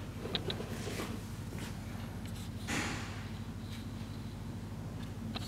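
Steady low hum of a quiet workshop, with a few light handling clicks and one short breath-like rush about three seconds in.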